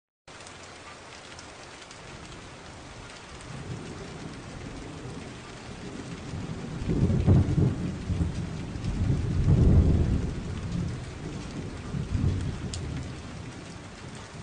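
Steady hiss of rain with low rumbles of thunder that build a few seconds in, are loudest about halfway through and again a little later, then fade.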